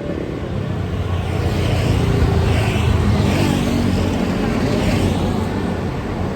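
A large coach bus passing on the road: low engine rumble and tyre noise build up over the first two seconds or so, then ease off, with no horn sounded.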